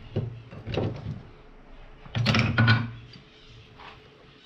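Workshop handling noise: several short knocks and clatters, the loudest cluster about two seconds in.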